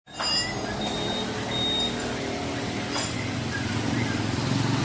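Motor scooter engine running steadily, with workshop background noise.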